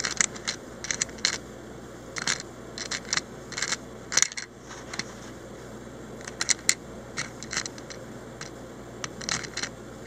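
Small metal parts of a TSA combination luggage lock being picked at and lifted out with a thin metal tool: scattered light clicks and scrapes, a few sharper ones among them.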